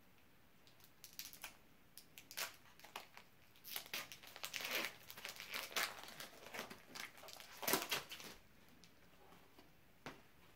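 Foil wrapper of a Pokémon TCG Team Up booster pack being torn open and crinkled by hand. Irregular crackles and rips come thicker and louder over several seconds, with the loudest rip near the end, then they stop.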